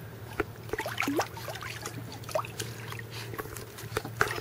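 Pool water sloshing and splashing as a person wades and a puppy paddles at the edge, with small sharp splashes and drips. A few brief squeaky glides come through, and a steady low hum sits underneath.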